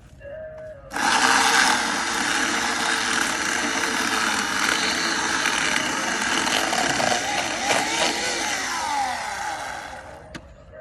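Electric chainsaw motor starting abruptly about a second in and running steadily for about nine seconds, its pitch falling near the end as it winds down.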